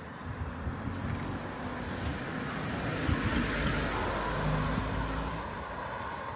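A car driving past on the road, its engine and tyre noise swelling to a peak about three to four seconds in and then fading.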